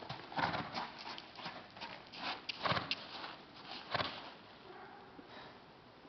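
Gypsy Vanner horse's hooves thudding irregularly on the ground, the loudest strikes about half a second, two and a half seconds and four seconds in, then going quieter.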